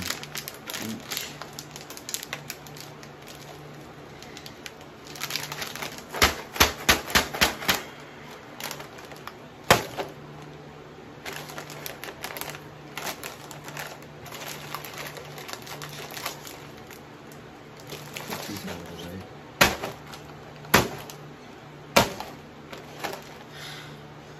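A sealed plastic snack bag crinkling as it is squeezed and pulled at to pop it open, with a quick run of sharp crackles about six seconds in and several single loud snaps later; the bag holds shut.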